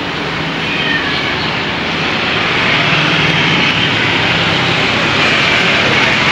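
Jet airliner engines: a steady rush with a high whine that grows louder from about two seconds in as the plane comes closer.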